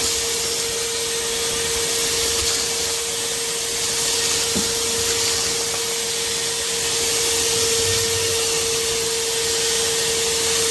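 Shop vacuum running steadily, its hose sucking up dust and grit from the floor: a constant rush of air over one steady motor whine.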